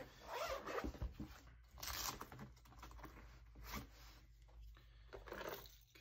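Zipper of a soft zippered tool case being pulled open in a few short strokes, then tools shifting inside as a hand rummages through the case.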